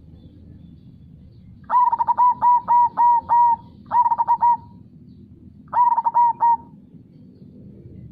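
Zebra dove (perkutut) singing: three phrases of quick repeated coos, the first and longest starting a couple of seconds in, then a short one and a third near the end, over a steady low rushing background of river ambience.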